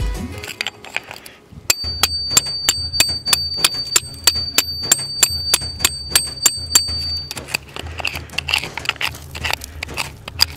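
Hammer blows on a steel cold chisel cutting into porous rock: rapid, evenly spaced strikes, about three a second, with a steady high metallic ring from about two seconds in that stops a little past the middle, then less regular knocks and chipping.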